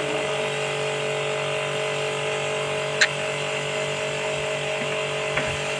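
Pressure washer running steadily, its motor-driven pump humming under the hiss of the water jet. A single sharp click about three seconds in.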